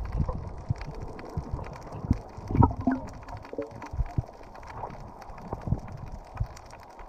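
Muffled underwater sound heard through a camera housing: irregular low thumps and knocks from water moving against the housing, with a short gurgle about two and a half seconds in.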